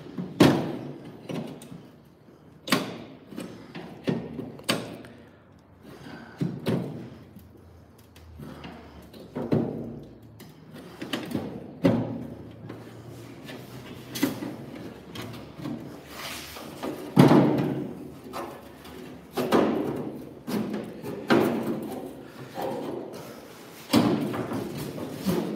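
Irregular sharp metallic knocks and thuds on a bare steel car door shell as a screwdriver is worked against a part seized in it for decades, loosening it.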